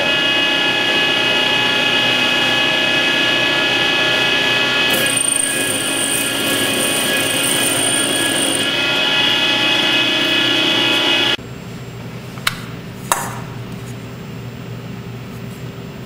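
A CNC metal spinning lathe running: the rotating metal blank is worked with a steady, ringing whine made of many pitches, and a high whistle joins in for a few seconds midway. About eleven seconds in the sound cuts off suddenly, leaving a quieter steady hum with two sharp clicks.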